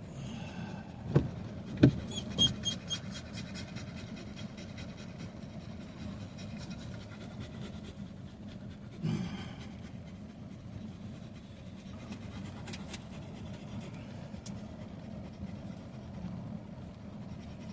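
A dog panting inside a vehicle cabin over a steady low rumble, with a few sharp knocks in the first few seconds.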